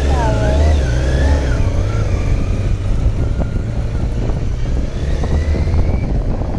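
Kawasaki Z900's inline-four engine running under a steady low rumble and being revved as the motorcycle pulls away, with a rising whine about five seconds in as it accelerates.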